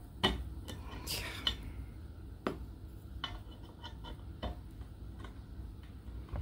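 Allen wrench clicking and scraping in a hex screw head on the metal stand plate: light, irregular metallic clicks with a short scrape about a second in. The supplied wrench is a poor fit and won't catch in the screw.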